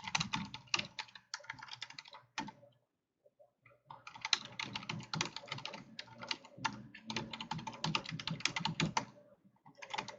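Typing on a computer keyboard: rapid keystrokes in two long runs, broken by a pause of about a second around three seconds in, with a short flurry near the end.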